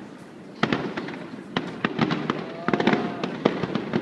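Fireworks display: aerial shells bursting in a rapid series of sharp bangs and crackles, starting about half a second in and coming thick and fast through the rest.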